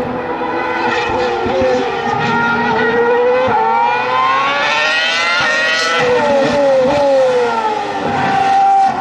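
Formula 1 V8 engine at high revs, its pitch climbing through a gear change and then dropping in quick steps with downshifts as it slows.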